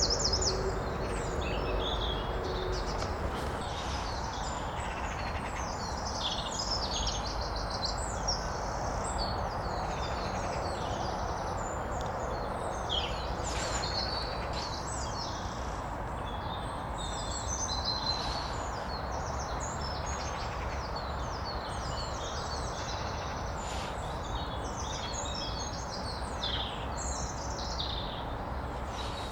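Steady rush of flowing stream water, with many small birds chirping and singing over it in quick, overlapping high calls and trills.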